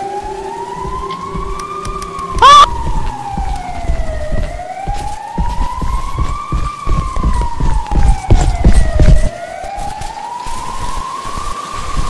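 A siren wailing, its pitch slowly rising and falling about every four and a half seconds, over loud, irregular low thumps from about three to nine seconds in. A short, sharp squeal cuts in about two and a half seconds in.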